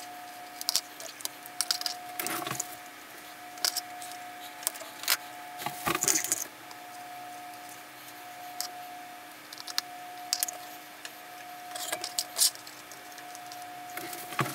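Small metallic clicks, rattles and scrapes at irregular moments as a hemostat, a coil spring and a handwarmer's catalyst head are handled, over a steady faint hum.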